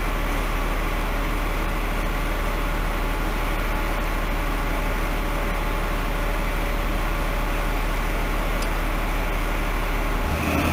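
Diesel locomotive engine running with a steady low drone; its note changes just before the end.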